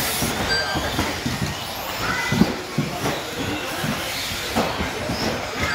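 Radio-controlled electric model buggies racing on a carpet track: a steady mix of motor whine and tyre noise, with short whines as the cars accelerate and a few sharp knocks from landings or hits against the track edges.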